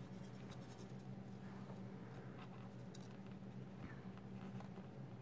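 Faint light scratching and a few small ticks from fingers handling small plastic and foam model-plane parts, over a steady low hum.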